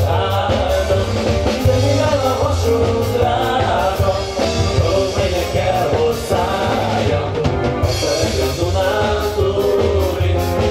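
Hungarian mulatós dance music played by a wedding band through loudspeakers, with a steady, even beat.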